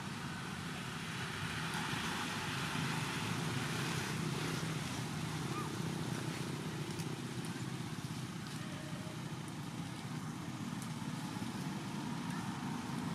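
Steady low outdoor rumble with no distinct events, of the kind left by distant traffic or wind on the microphone.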